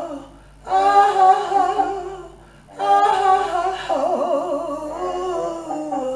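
A woman's wordless jazz vocal: two long sung phrases, the second with a wide, wavering vibrato in its middle.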